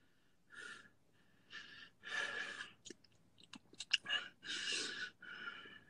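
A person breathing heavily: about five noisy breaths, with a few short clicks around the middle.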